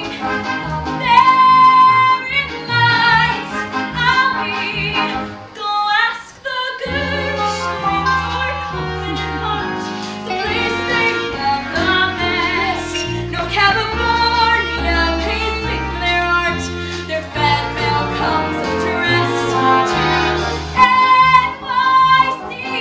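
A young woman singing a musical-theatre solo over orchestral accompaniment. The accompaniment thins briefly about six seconds in, then comes back fuller with a bass line under the voice.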